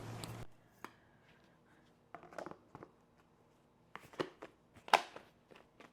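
Scattered light knocks and clicks of kitchen storage containers and packaging being handled, the loudest knock about five seconds in.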